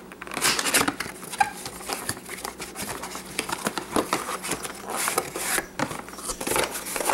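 Cardboard packaging of a processor retail box being opened and handled: a run of irregular rustles, scrapes and light knocks of card against card.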